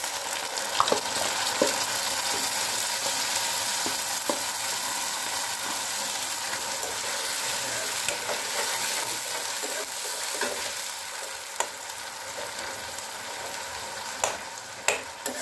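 Ground tomato puree dropped into hot mustard oil with onion and garlic in a steel kadhai: the oil starts sizzling loudly at once and keeps sizzling steadily. A steel ladle stirs the mix, clinking against the pan now and then.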